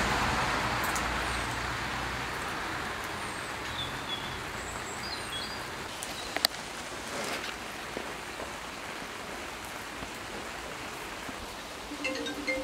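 Steady rain falling, with milk being poured into a clay pot at the start and trailing off over the first couple of seconds. A few short high chirps sound in the first half, and a single click comes about six seconds in.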